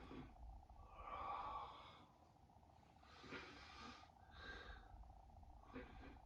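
Faint, heavy breathing of a man catching his breath after a set of crunches, in four or five separate breaths, the longest about a second in.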